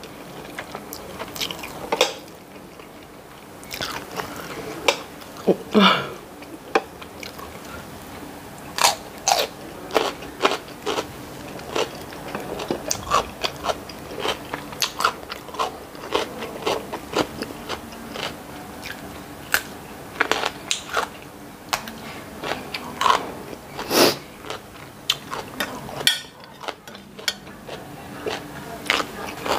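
A person chewing and biting food, with many short crisp crunches and clicks throughout.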